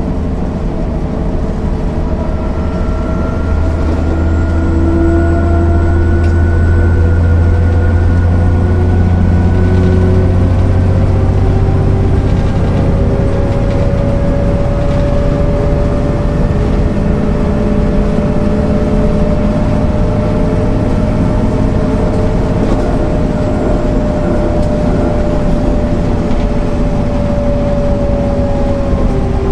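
MAN NL 262 city bus's diesel engine and drivetrain running under way, its tones slowly rising and falling. It grows louder about four seconds in, with a strong low hum.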